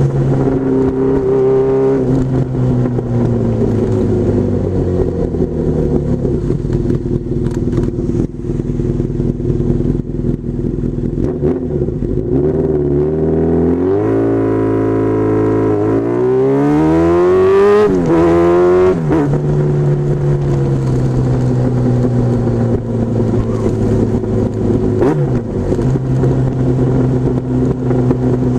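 Honda Hurricane 1000 motorcycle's inline-four engine heard close from the tail. It slows down over the first several seconds, then revs up strongly about two-thirds of the way through, drops sharply at a gear change, and settles to a steady pitch while cruising.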